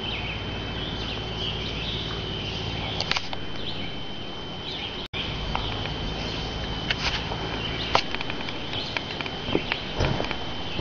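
Footsteps and scattered taps on the wooden plank walkway of an abandoned railroad trestle, over a low rumble and a steady high-pitched whine. The sound cuts out for an instant about five seconds in.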